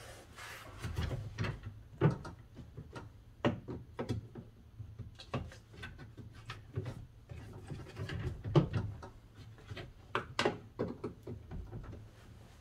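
Irregular clicks, knocks and rubbing of a Jeep Grand Cherokee rear door latch assembly being worked into place inside the door, as it won't line up. Sharper knocks come about two seconds in and again near eight and a half and ten and a half seconds.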